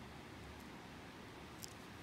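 Faint steady room hiss, with one short faint click about one and a half seconds in.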